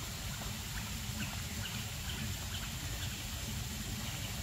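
Forest ambience: a steady low background hum and hiss with a few faint, short chirps scattered through it.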